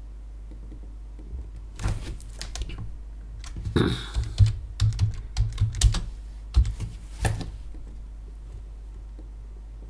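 Computer keyboard being typed on: an irregular run of keystroke clicks from about two seconds in until about seven seconds in, over a steady low hum.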